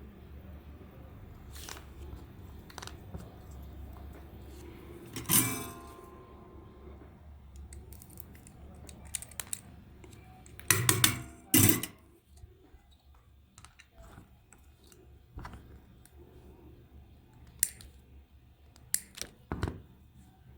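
Small parts and hand tools being handled on a workbench: scattered clicks and taps, a sharp strike with a brief ring about five seconds in, and a louder double clatter about eleven seconds in, over a low hum that fades out partway through.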